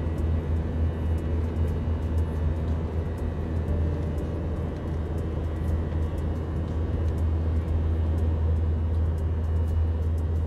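Airliner cabin noise in flight: a constant deep drone from the jet engines and airflow.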